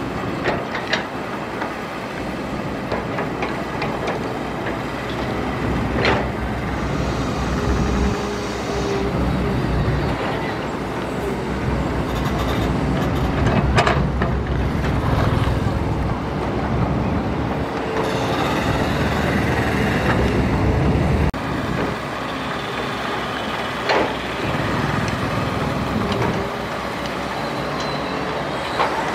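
Crawler excavator's diesel engine running under hydraulic load as it digs and swings, its low rumble dropping off suddenly about two-thirds through. Several sharp clanks and thuds stand out, the loudest about halfway, as the bucket works and dirt drops into the dump truck's steel bed.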